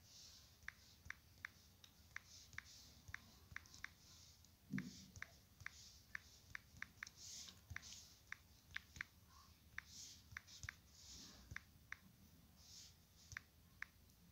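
Faint key-press clicks from a phone's on-screen keyboard as text is typed, short sharp ticks coming irregularly at about two a second, with one soft low thump about five seconds in.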